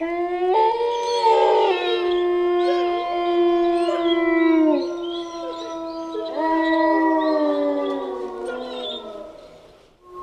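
A pack of wolves howling together: several long howls overlap at different pitches, held steady and some sliding downward at their ends. The chorus fades out near the end.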